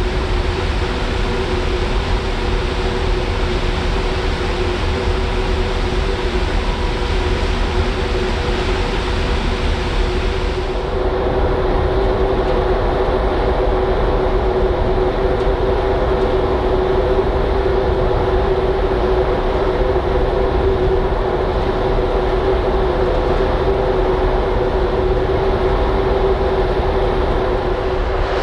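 Steady drone of the Mega Smeralda ferry's machinery heard on the open deck: a constant low rumble with a hum of several steady tones under a rushing hiss. About eleven seconds in the sound changes abruptly, the hiss dropping and the hum standing out more.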